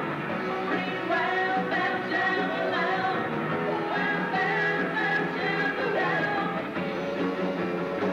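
Live rock band playing, with a woman singing lead over electric guitar and drums.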